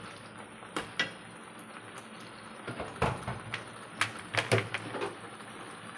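Stainless steel spatula knocking and scraping against a wok while a thick spice paste is stirred: a handful of sharp clinks, two in the first second or so and a quick cluster in the second half.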